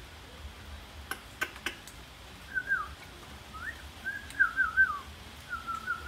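Three sharp clicks about a second in, then a loose phrase of short whistled notes. Some slide down, one rises, and a run of quick wavering notes comes near the end.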